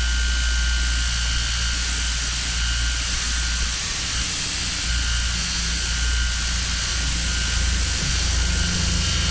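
Industrial noise music: a dense, steady wash of hiss over a deep droning rumble, with thin high steady tones above it. The deep drone thins out briefly about four seconds in.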